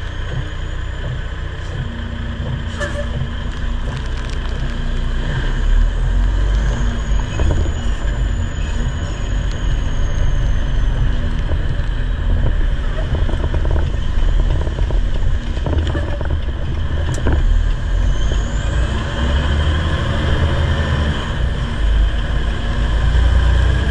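Semi-truck's diesel engine and road noise heard inside the cab, a low steady rumble that grows louder about five seconds in as the truck pulls away and picks up speed, with a steady low hum running under it.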